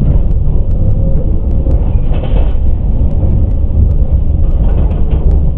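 Tram running on the rails, heard from inside the driver's cab: a steady, loud low rumble of wheels and running gear.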